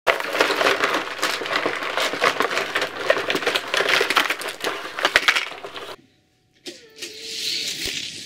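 Plastic Hot Wheels track pieces and parts spilling out of a tipped box onto carpet: a dense, loud clatter of many small plastic knocks lasting about six seconds. After a short silence, a fainter hiss follows near the end.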